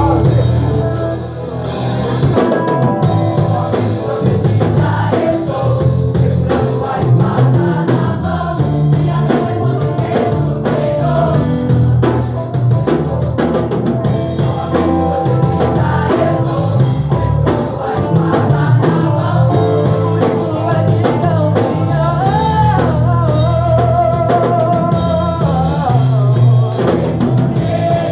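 Gospel music: a band with drum kit playing, with singing voices over a steady bass line.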